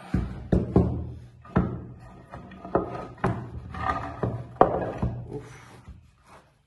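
Wooden guitar back plates being handled and set down on a wooden workbench: a string of sharp knocks and thunks as the boards meet the bench and each other, with wood sliding and rubbing on wood between them.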